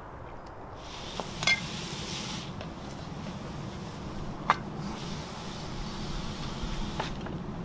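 A few knocks and clinks of bottles, a bowl and a pan being gathered up, with rustling in between over a steady low rumble. The first clink, about a second and a half in, is the loudest and rings briefly.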